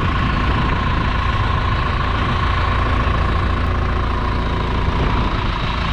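Tractor engine idling steadily: a low rumble with a thin whine over it that fades near the end.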